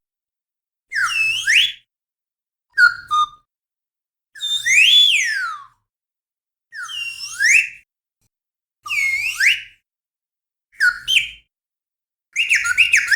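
Slide whistle playing short cartoon-style glides, sliding up and down in pitch, about seven runs separated by brief pauses; the last run is a quick up-and-down warble.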